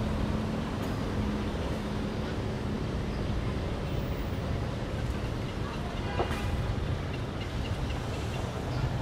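Steady low rumble of distant road traffic, with one brief sharp click about six seconds in.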